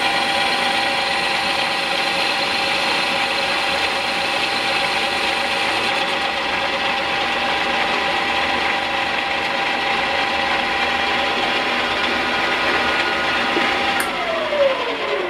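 E1N metal lathe converted to CNC, its spindle drive and gears running with a steady whine made of several steady tones. Near the end a click, then the whine falls in pitch as the spindle spins down.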